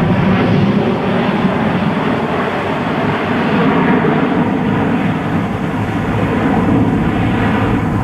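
Jet airliner passing close by, its engines giving a loud, steady rumble that eases slightly near the end.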